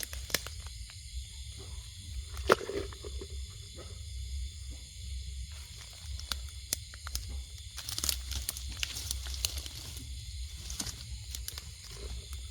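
Irregular rustling, crackling and crunching of dry leaves and plant litter being moved through or pushed aside, with one sharper crack about two and a half seconds in and a busier spell just past the middle. A steady high-pitched hiss and a low rumble run underneath.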